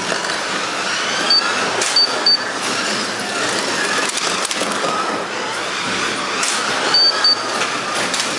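1/24-scale Carrera Digital Ferrari P4 slot cars racing on the track, their small electric motors whining up and down with the throttle over the rattle of the cars running in the slots. Short high electronic beeps come a few times, in pairs about a second in and again near the end.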